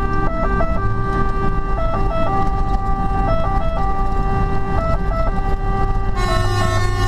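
Fire engine siren sounding from inside the cab: a held tone broken about every second and a half by quick drops in pitch, repeating steadily over the truck's diesel engine. A short burst of hiss comes near the end.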